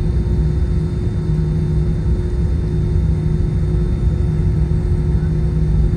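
Airliner cabin noise: the aircraft's engines and airframe giving a steady, loud low rumble with an even hum, as the plane gets ready for takeoff.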